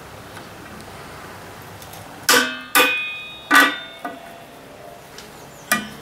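Screwdriver working a coiled brake-shoe return spring on the steel brake backing plate of a 1944 Ford 2N tractor: a few sharp metallic clinks that ring briefly, starting a little over two seconds in.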